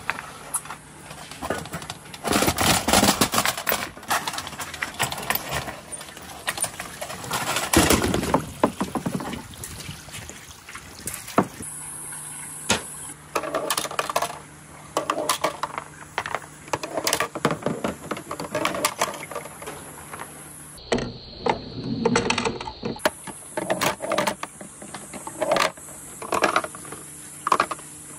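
Many marbles rolling and clacking down a marble run, with dense clattering runs about two seconds in and again around eight seconds, then scattered clicks and rattles.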